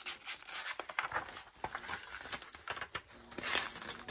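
Transfer paper and its plastic film crinkling and rustling in irregular crackles as the cut waste is peeled away from the printed image by hand, weeding the transfer.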